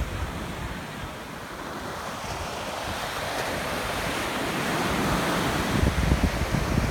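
Ocean surf washing in, with wind buffeting the microphone in low gusts that grow stronger near the end.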